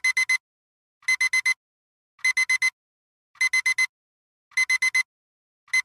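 Digital alarm clock beeping in rapid groups of four short, high-pitched electronic beeps, a group a little more than once a second with brief silences between.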